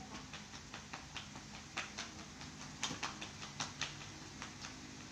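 A quick, irregular run of light clicks and taps, a few of them sharper, over a faint low steady hum.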